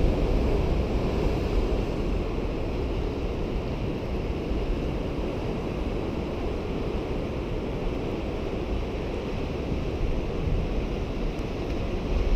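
Steady wash of sea surf, with wind rumbling on the microphone.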